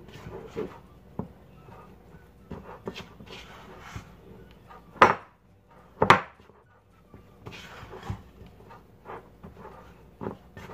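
A utensil stirring and scraping flour-coated raw chicken pieces in a glass mixing bowl, with scattered clinks against the glass. Two loud sharp knocks come about five and six seconds in.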